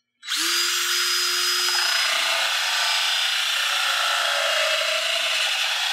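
Cordless drill at its highest speed spinning a diamond-coated carbide stud sharpening bit against a snowmobile track's carbide stud, starting a moment in and running on as a steady grinding hiss. This is the first sharpening stage, grinding away the stud's body material to expose the carbide tip.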